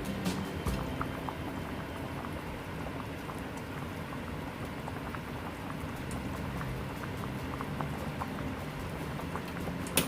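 Pot of pork-leg broth at the boil, bubbling steadily with many small pops. A single sharp click sounds just before the end.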